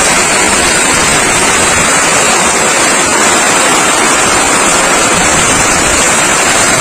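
Hailstorm: heavy rain mixed with hailstones pelting down on wet pavement, a loud, steady, dense rush.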